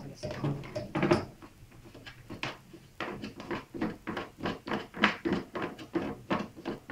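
Plastic end cap of an RO water purifier's membrane housing being twisted open by hand: a quick series of short creaks and clicks, thickest in the second half.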